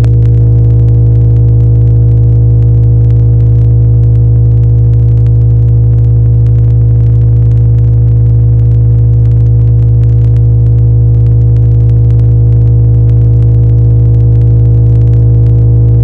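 Loud, steady, unchanging low drone: a deep hum with several held tones layered above it, a synthesized space-ambience track of the kind presented as the sound of a planet or moon.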